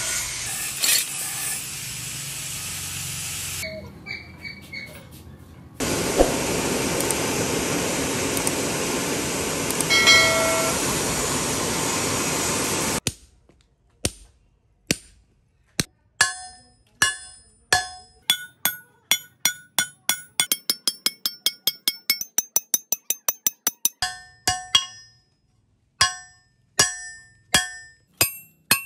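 A steady rushing noise for the first thirteen seconds or so, which cuts off suddenly. Then a hammer strikes red-hot steel on an anvil, each blow ringing: the blows start a second or so apart, speed up into a rapid run in the middle, then slow again.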